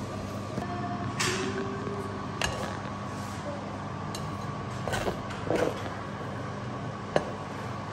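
Kitchen knife chopping fresh parsley on a plastic cutting board: a few separate knocks and short scrapes of the blade at uneven intervals, over a steady low hum.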